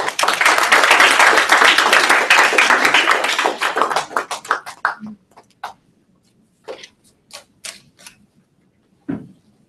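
Small audience applauding: dense clapping for about five seconds, then thinning to a few scattered claps that die away.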